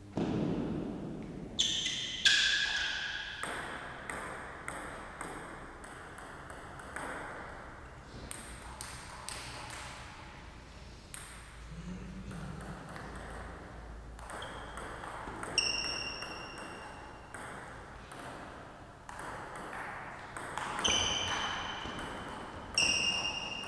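Table tennis ball clicking off bats and the table during rallies, the strokes coming in quick runs of two or three a second. A few louder hits ring with a short, high ping.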